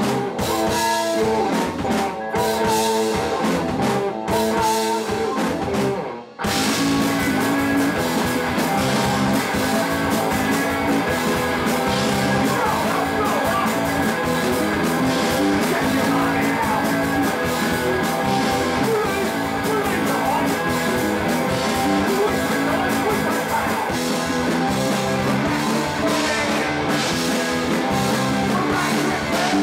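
Live punk rock band playing loudly. A guitar riff played in short stabs opens, breaks off briefly about six seconds in, then the full band comes in with drums.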